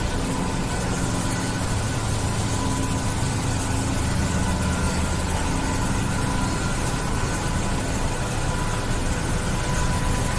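High-pressure hydro jetting machine running steadily: a triplex plunger pump driven by a 150 HP electric motor. It makes a continuous low hum with thin, steady higher tones above it.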